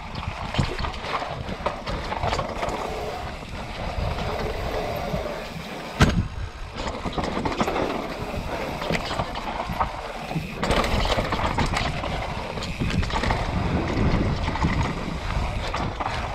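Mountain bike descending a dry, bumpy dirt trail at speed: wind buffeting the microphone, tyres on dirt and the bike clattering over the bumps, with a sharp knock about six seconds in.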